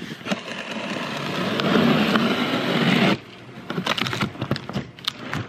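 A box cutter slicing along the packing-tape seam of a large cardboard box in one continuous cut of about three seconds that stops suddenly, followed by cardboard flaps rustling and knocking as the lid is pulled open.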